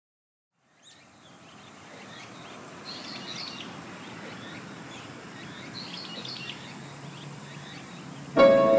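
Outdoor ambience of birds chirping in small bursts over a steady hiss, fading in after about a second of silence. Music with piano comes in loudly just before the end.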